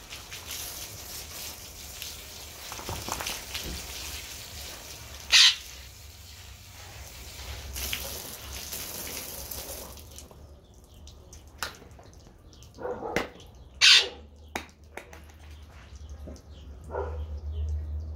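Water splashing and dripping while a large dog is washed by hand outdoors. A steady hiss runs for the first ten seconds and cuts off suddenly, then come scattered drips and clicks, with two short, loud, sharp sounds about five and fourteen seconds in.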